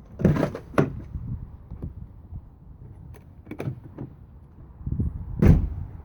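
Pickup truck door being worked: a few separate clunks of the handle and latch, the loudest about five and a half seconds in.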